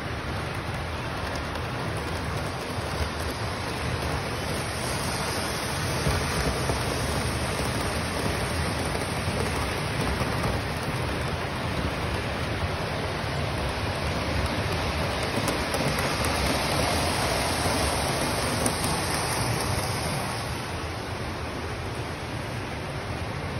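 Model freight train rolling along the layout's track: a steady rumbling rush of wheels on rails that grows louder for most of the middle stretch as the train runs close by, then eases off near the end.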